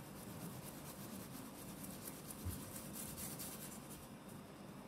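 Flour being sifted through a stainless-steel mesh sieve into a steel bowl: a faint, quick, repeated scratchy rustle as the sieve is shaken, with one soft thump about halfway through.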